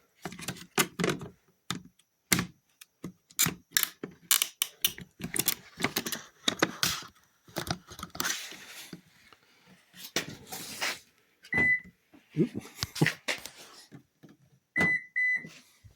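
Repeated plastic clicks, taps and knocks as a mirror turn signal lamp is pressed and snapped into the mirror housing. A short high beep sounds near the end of the first three quarters, and two quick beeps follow near the end as the car's door lock is worked to flash the new signal.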